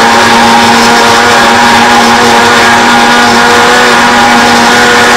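Electric countertop blender running steadily at a constant pitch, pureeing onion with water, salt and black pepper into a smooth marinade.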